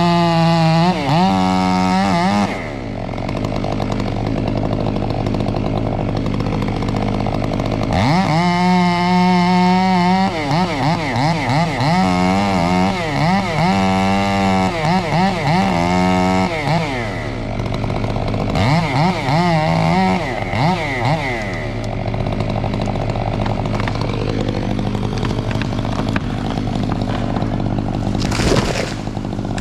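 Gas chainsaw revved to full throttle in several bursts, its pitch wavering under load as it cuts, dropping back to idle between bursts. A short sharp noise comes near the end.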